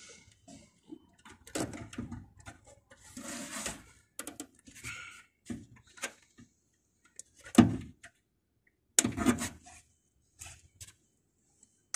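Scattered clicks, knocks and rustles of hand work inside an air-conditioning unit's electrical control panel, a screwdriver and wiring being handled. Two louder knocks come about two-thirds of the way in.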